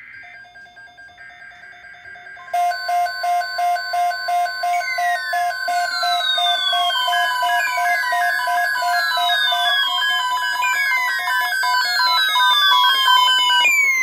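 Several weather alert radios sounding their alarms at once for a severe weather alert. One pulsed beep starts right away; about two and a half seconds in, more radios join with beeps at other pitches, a steady tone and a falling sweep that repeats about every second and a half, all layered together.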